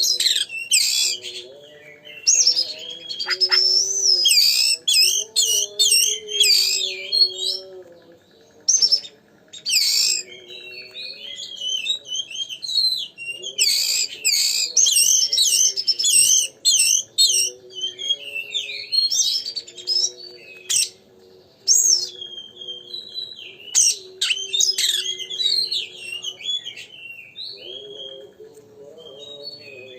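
Oriental magpie-robin (kacer) singing loudly and continuously, a rapid run of varied whistles, trills and chattering notes with a few short pauses. This is the vigorous 'gacor' song used as a lure to rouse other magpie-robins.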